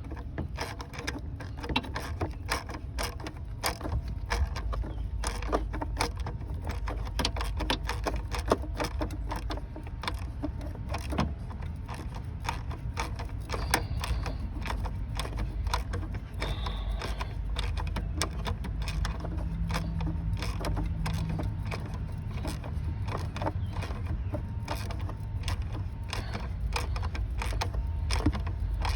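Ratchet wrench clicking in quick runs as the bolts of a new thermostat housing are tightened down.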